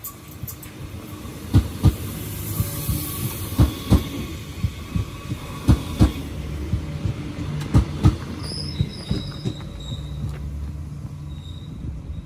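Renfe Civia class 463 electric commuter train passing close by, its wheels clacking over rail joints in pairs of sharp knocks about every two seconds over a steady rumble. A faint high wheel squeal comes in during the second half.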